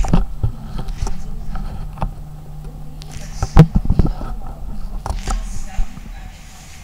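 Meeting-room background: indistinct low voices over a steady low hum, broken by several sharp knocks, the loudest about halfway through.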